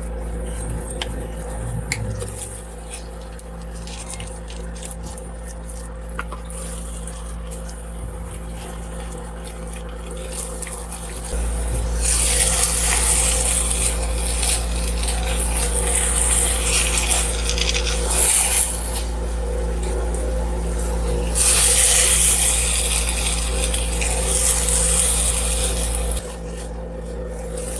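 Spatula stirring, scraping and pressing thick sticky rice in a nonstick frying pan, over a steady low hum. The scraping and hiss get louder about eleven seconds in and drop back a second or two before the end.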